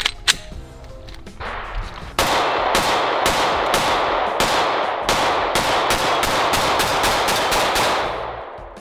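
A 9mm compact pistol fired in a quick string of more than a dozen shots, starting about two seconds in and coming faster toward the end.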